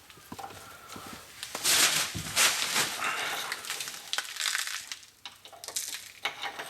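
Irregular scraping and crunching as truck parking brake cables are handled and worked free. It is loudest between about one and a half and three seconds in.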